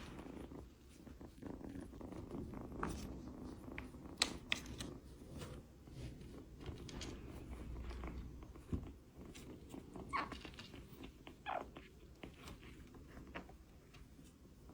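Kitten purring steadily, with scattered small clicks.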